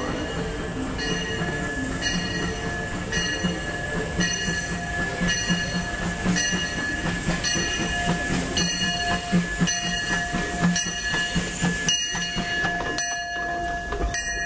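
Disneyland Railroad steam locomotive approaching and passing, its bell ringing in even strokes about once a second over the steady running noise of the train, with a faint steady high tone underneath.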